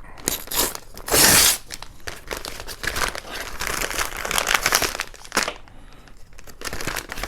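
Packaging crinkling and tearing as a package is opened by hand, loudest in a burst about a second in, then steady crackling rustle.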